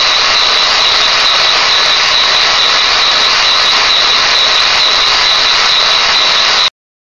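Lego vibrating-lever engine running on vacuum-drawn air: a steady rushing hiss with a high, whistle-like tone, cutting off suddenly near the end. It runs smoothly with no knock, its piston repaired.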